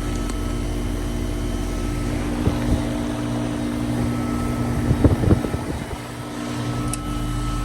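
Goodman GSH13 heat pump outdoor unit running in heat mode: a steady compressor hum with the condenser fan, with a few light knocks about two and a half seconds in and again about five seconds in.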